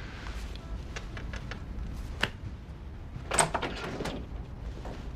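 An office door being handled: scattered small clicks and knocks over a low room hum, with a louder clunk about three and a half seconds in.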